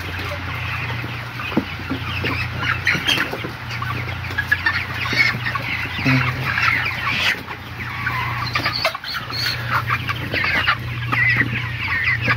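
A large flock of 35-day-old broiler chickens clucking and chirping, many birds calling at once and overlapping, over a steady low hum.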